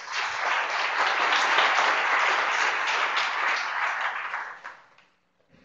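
Audience applauding, a steady patter of many hands clapping that dies away about five seconds in.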